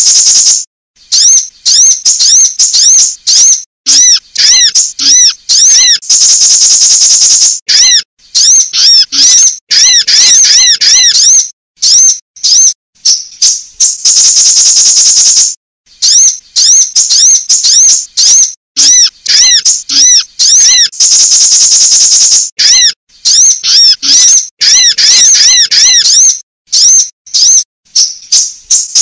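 Sunbird calls on a lure recording: runs of rapid high-pitched arched chirps, broken three times by a long buzzy trill of about a second and a half that recurs at even spacing, as in a loop.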